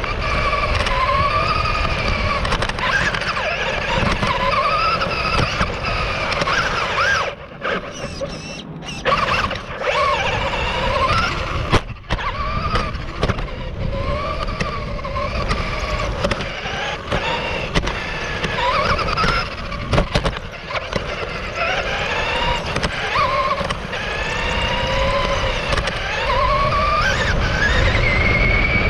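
Radio-controlled car's motor and drivetrain heard from a camera mounted on the car, whining in a pitch that rises and falls with the throttle over a steady low rumble. About seven seconds in the rumble drops away for roughly two seconds, and a few sharp knocks stand out, the loudest about twelve seconds in.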